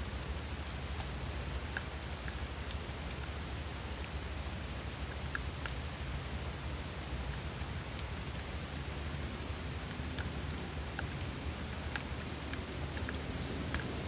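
Falling snow pattering and ticking on the microphone and gear: scattered sharp ticks over a steady low rumble.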